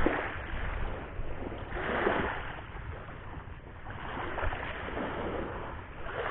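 Waves washing on a beach, with wind buffeting the microphone; a wave surges loudest about two seconds in.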